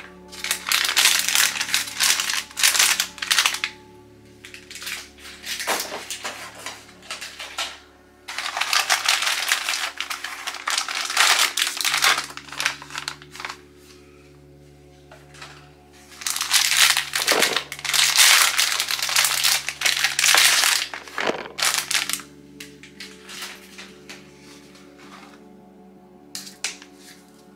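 Plastic packaging crinkling and crackling as it is pulled off and handled, in several long bursts separated by pauses. Soft background music plays underneath.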